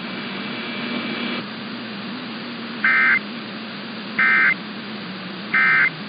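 Emergency Alert System end-of-message data tones received over AM radio: three short, identical bursts of warbling two-tone data, about a second and a half apart, over steady static hiss. They mark the end of the tornado warning broadcast.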